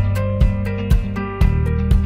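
Background music with a steady beat, about two beats a second, over a heavy bass line and a short-note melody.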